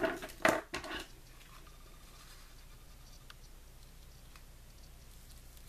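Paper rustling and tapping as hands press washi tape onto planner pages: a short burst of rustles and taps in the first second, then only faint scattered ticks.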